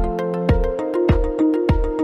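Background music: an electronic track with a steady drum beat, just under two beats a second, under sustained keyboard-like notes.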